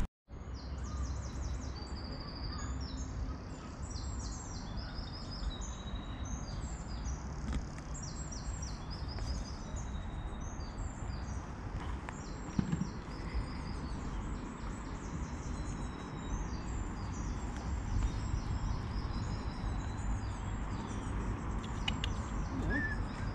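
Songbirds singing, with many short chirps and trills, over a steady low rumble of wind on the microphone.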